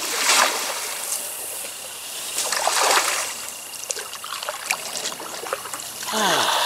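Shallow river water trickling and splashing around a kayak, with two louder splashes, one just after the start and one about three seconds in.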